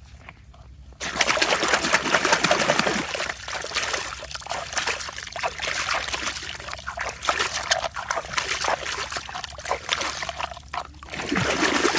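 Water pouring and splashing over a toy being washed, starting suddenly about a second in and going on with many small irregular splashes.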